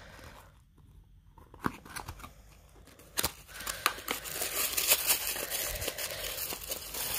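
A few light clicks of a small paperboard box being handled, then from about three seconds in a continuous crinkling rustle of packaging being handled, growing louder.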